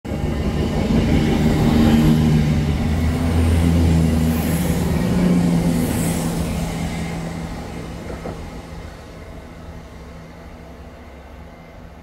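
Diesel multiple-unit passenger train passing close by on the platform line, its engines giving a steady low drone that fades away over the second half as the train runs off into the distance.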